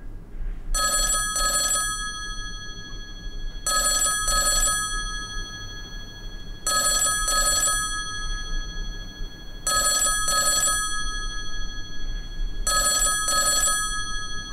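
Black rotary-dial telephone ringing in a double ring, five times at about three-second intervals, over a steady low hum.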